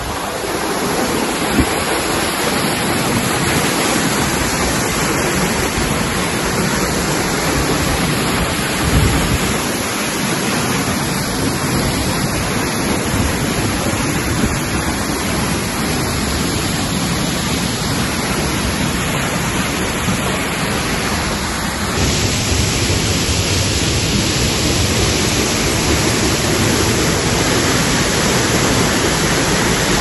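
Waterfall heard from close beside the falling water: a loud, steady rushing roar. Its tone shifts slightly about three-quarters of the way through.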